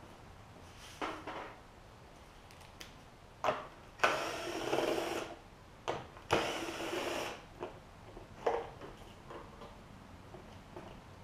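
Cordless drill-driver spinning out the bolts that hold on a small engine's plastic shroud, in two runs of about a second each around the middle. Short knocks and clicks of the tool and bolts being handled come before and after the runs.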